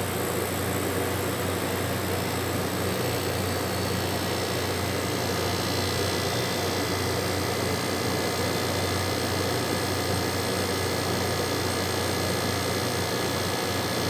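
TCL window-type air conditioner's compressor running with a steady hum. It was started by jumping the thermostat's two terminals together, a bypass test pointing to the thermostat as the reason the compressor would not run.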